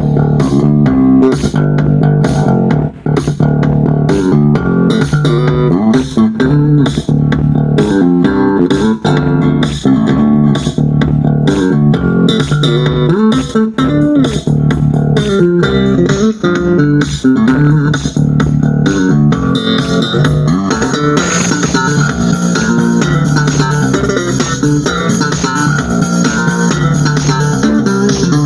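Bass-heavy music with plucked bass guitar and guitar, played loud through a Cerwin-Vega AB36C and a Dual mid-high speaker in a sound test. Deep bass notes dominate throughout, and more treble comes in about two-thirds of the way through.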